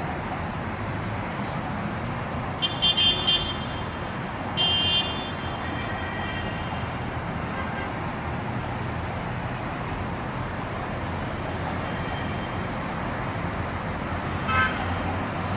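City street traffic: a steady rumble of passing vehicles, with a quick run of short car-horn toots about three seconds in, a longer honk just after, and one more brief honk near the end.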